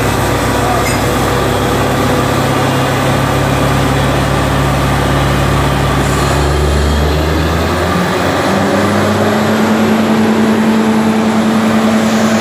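Truck-mounted borewell drilling rig running: its engine and air compressor drone loudly and steadily as it drills. About seven to eight seconds in the machine note changes, the deep drone dropping away and a higher steady hum taking over.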